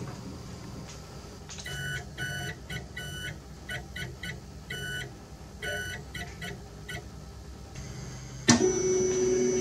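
Morse code beeps, short and long tones keyed on and off, sending "QST DE" as a ham-radio call, over a low steady hum. Near the end a louder, lower steady tone starts abruptly and holds for about a second and a half.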